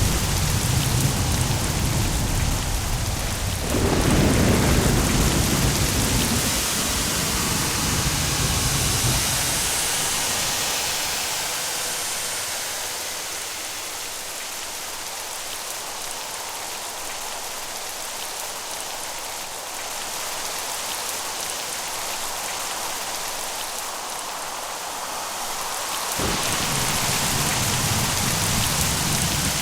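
Steady heavy rain with rolling thunder. A deep rumble swells to a louder peal about four seconds in and fades away, rain alone carries on, and the low rumble comes back suddenly near the end.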